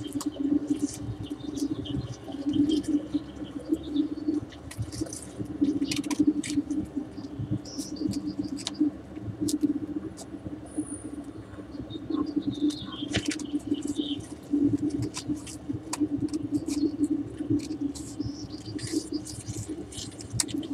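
Birds chirping and calling over a steady low hum, with scattered clicks. There are quick series of high chirps and, about two-thirds of the way through, a call that glides downward.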